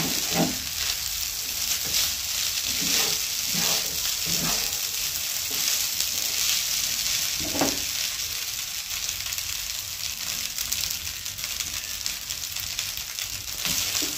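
Fried rice with vegetables and egg sizzling steadily in a frying pan while a slotted spatula stirs and turns it, with a few short strokes of the spatula against the pan.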